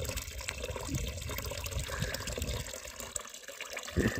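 A thin stream of spring water from a fountain spout splashing steadily into a concrete pool.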